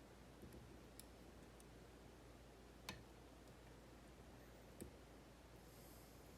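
A few faint, sharp clicks of lock picks working inside a Kaba 8 dimple cylinder lock, over near silence. The clearest click comes about three seconds in, with lighter ones about two seconds before and after it.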